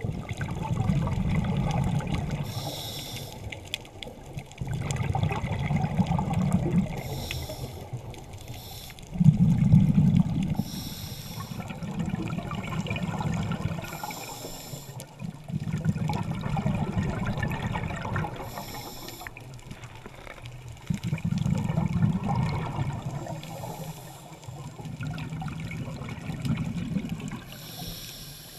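Scuba diver breathing through a regulator underwater: a short hiss on each inhale, then a low rumble of exhaled bubbles on each exhale. About six breaths, evenly paced.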